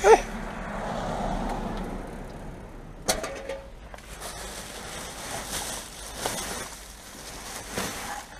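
Black plastic rubbish bags rustling and crinkling as hands rummage through them, with one sharp knock about three seconds in.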